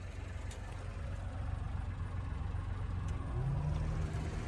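Small three-cylinder engine of a 1991 Honda Acty van idling with a low, steady hum. A second, slightly higher hum joins about three seconds in.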